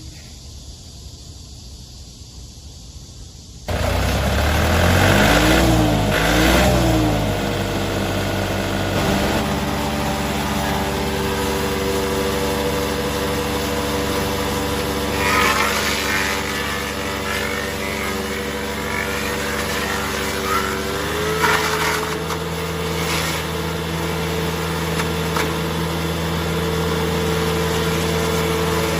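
Mobile wood chipper's 54 HP four-cylinder 490 diesel engine starting up about four seconds in. It revs unevenly for a few seconds, then settles into a steady run, with its speed stepping up slightly past two-thirds of the way through.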